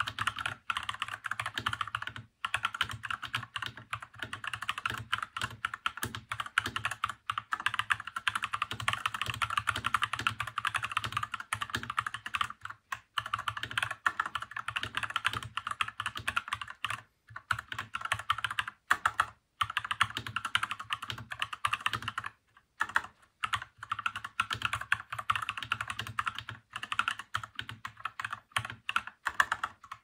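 Fast typing on a TM680 68% hot-swap mechanical keyboard fitted with Cobalt POM linear switches and blank PBT keycaps: a dense run of key clacks, broken by a few brief pauses.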